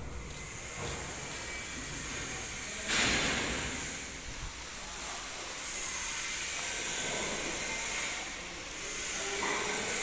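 Steady hissing background noise of a brick-kiln factory hall, with a sudden louder hiss about three seconds in that fades over a second or so.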